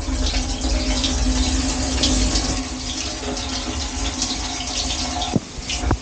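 Water spraying against the racks and stainless tub inside a Bosch dishwasher during its wash cycle, heard from inside the tub, over a low rumble and the steady hum of the circulation pump. The spray dips briefly near the end.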